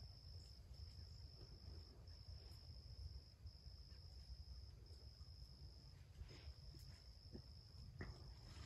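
Faint insect trill, a high steady buzz broken by short gaps about once a second, over a low rumble of wind on the microphone.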